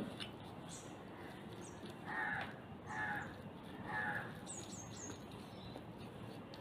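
A bird calling three times, about a second apart, over a low steady background, followed by a few short high chirps.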